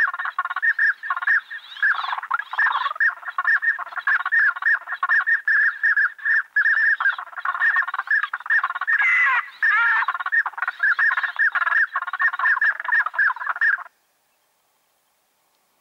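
Rapid, unbroken run of duck quacks, about four or five a second, cutting off abruptly near the end.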